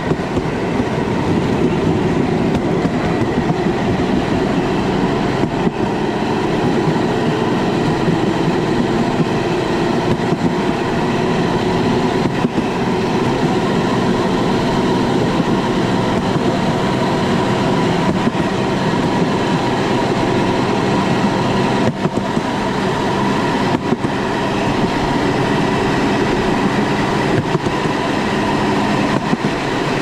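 A motorcycle-powered rail cart (brujita) running steadily along the railway track. Its wheels rattle on the rails under a continuous engine drone.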